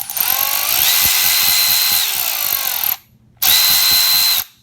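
Milwaukee M12 Fuel 1/4-inch ratchet's brushless motor running free on the trigger: a whine that rises in pitch as it speeds up, holds, and eases down before stopping. A second, shorter full-speed burst follows near the end and stops abruptly, the quick stop of the ratchet's electrical brake.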